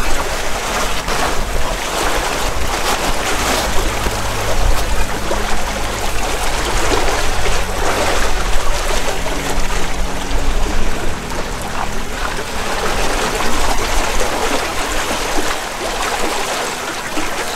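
Steady rush of water along the hull of a sailboat under way, with a few sharp knife chops into a young coconut in the first seconds.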